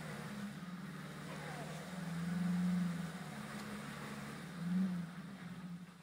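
Small 4x4 off-road truck's engine revving in surges under load as it climbs a muddy rock ledge. It is loudest about two and a half seconds in and again briefly near five seconds.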